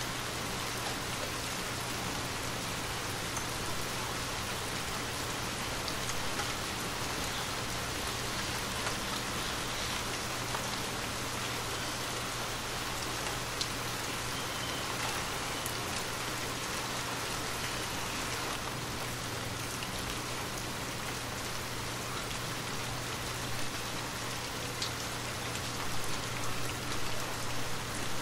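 Steady rain falling on a hard surface, with a few distinct drop hits and a low steady hum underneath. The level swells in short pulses near the end.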